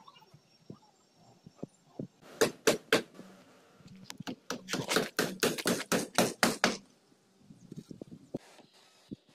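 Hammer blows on wooden formwork boards: two hard strikes, then a quicker run of about three to four blows a second, with fainter knocks near the end.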